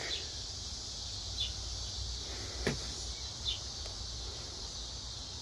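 Outdoor ambience: a steady high-pitched drone of insects with a faint low rumble underneath. Two short faint chirps and a single click stand out.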